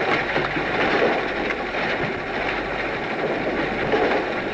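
Flying Scotsman, an LNER A3 Pacific steam locomotive, at work on an old reel-to-reel tape recording: a steady rush of steam and machinery noise with a few scattered knocks.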